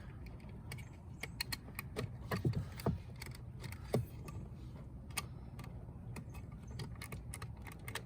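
Scattered small plastic clicks and rattles of a car door-card trim piece being worked loose and its electrical connector unplugged by hand.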